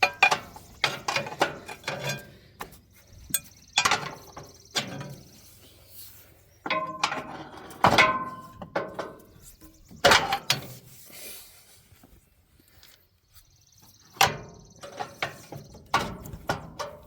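Irregular metal clanks and knocks of hand tools working on tractor brake and wheel parts, some strikes ringing briefly. They come in clusters, with a short lull about two thirds of the way through.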